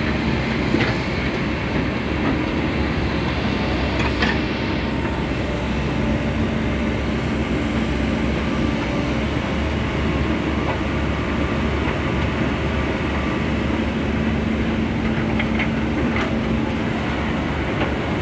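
Komatsu hydraulic excavator running as it digs: a steady diesel engine and hydraulic rumble with a constant hum. A few short knocks come through, about a second in, near four seconds and near the end.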